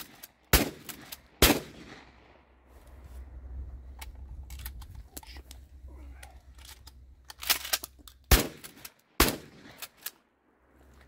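Four 12-gauge blasts from a 1972 Ithaca Model 37 Featherlite pump shotgun. Two come about a second apart at the start. Then come a few seconds of small clicks and knocks as two shells are pushed into the bottom loading port and the slide is worked. Two more shots come about a second apart near the end.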